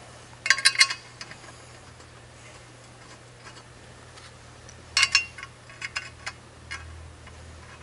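Small metallic clicks and taps of screws being set into holes in a metal conveyor leg upright and turned by hand: a quick cluster of clicks about half a second in, another about five seconds in, then a few scattered ticks.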